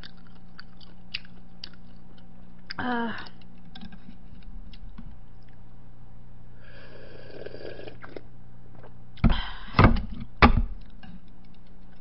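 Small mouth and eating clicks, a brief falling hum about three seconds in, then a couple of seconds of slurping broth from a black earthenware ttukbaegi bowl of sundae gukbap. Three heavy knocks follow around ten seconds in.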